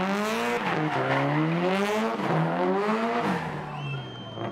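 Subaru Impreza WRX STI Spec C's turbocharged flat-four revving hard in three rising surges, each cut off by a sudden drop, as the car is thrown around tight turns. Tyres squeal under it, and the engine note fades near the end.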